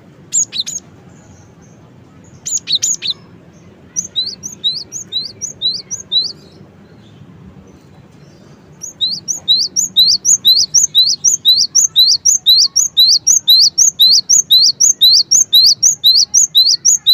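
Cinereous tit (gelatik batu) singing: a couple of short chattering bursts, then a series of sharp rising whistled notes, a pause, and from about halfway a long, fast run of repeated notes, about four or five a second.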